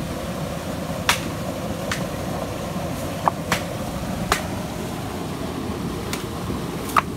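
Steady rush of water from a small waterfall and river rapids, with a few sharp knocks scattered through, about seven in all.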